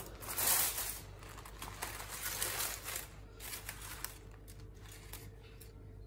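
Baking paper and aluminium foil crinkling and rustling as they are pulled open by hand from around a cooked brisket. The sound comes in uneven spurts, loudest about half a second in and again around two to three seconds, dying down near the end.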